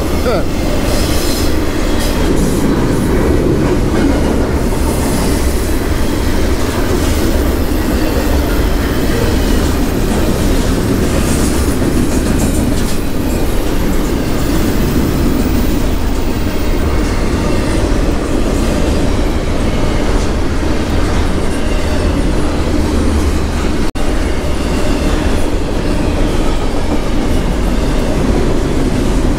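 Freight train crossing the bridge overhead: a loud, steady rumble of rail cars rolling past without a break.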